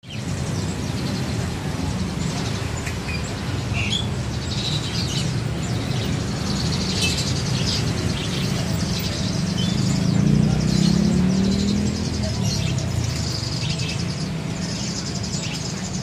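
Many caged small songbirds chirping and twittering at once, short high calls overlapping throughout, over a steady low background rumble with faint indistinct voices near the middle.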